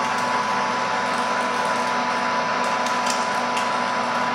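KERN Mustang 4 power pipe threading machine running under load, its die head cutting taper threads on 3-inch steel pipe: a steady motor and gear drive sound with a constant high whine and the grinding of the dies in the metal.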